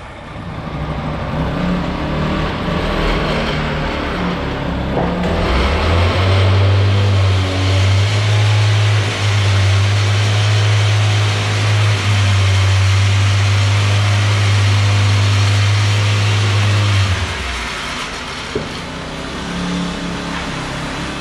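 Small gas engine of a vibrating power screed running while it strikes off wet concrete. A deep steady hum comes in about five seconds in and stops about seventeen seconds in, then the engine runs on more quietly.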